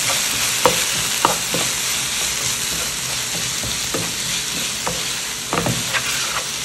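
Sliced onions and capsicum sizzling steadily in hot oil in a frying pan while being stir-fried with a wooden spatula. Irregular light knocks and scrapes come from the spatula against the pan.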